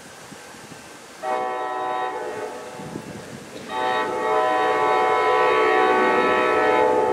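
An approaching train's locomotive air horn sounds twice over a low rumble. A blast of about two seconds starts a little over a second in, then a longer, louder blast of about three seconds follows. Each blast is a chord of several notes.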